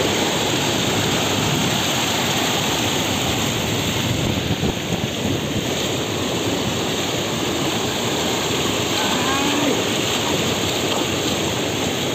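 Muddy floodwater rushing over a submerged road in a steady, even rush, with rain falling.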